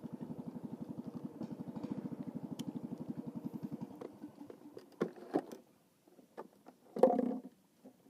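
A small engine running with a rapid, even putter, which dies away about four seconds in; a few sharp knocks follow, then a louder thump near the end.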